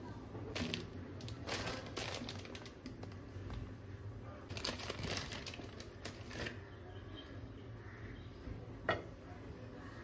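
Faint, scattered rustling and light clicks of objects being handled, with a sharper click about nine seconds in.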